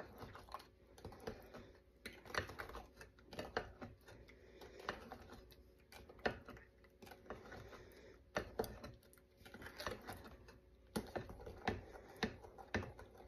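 Wooden spoon stirring mashed strawberries in a glass measuring bowl, tapping and scraping against the glass in faint, irregular clicks several times a second.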